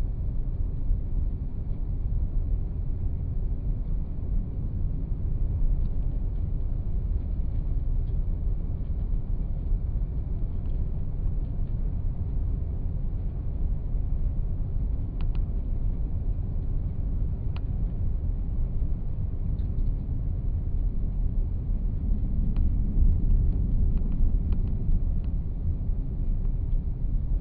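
Steady low road rumble of a moving vehicle heard from inside the cabin, with engine and tyre noise on a paved highway. A few faint ticks sound over it.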